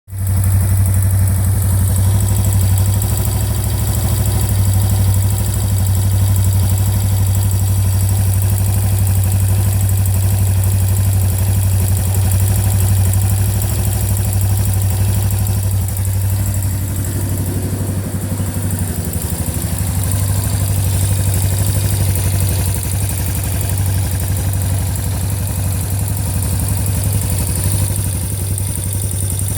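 Yamaha Tri-Moto YTM200's single-cylinder four-stroke engine idling steadily, with an engine tick noise.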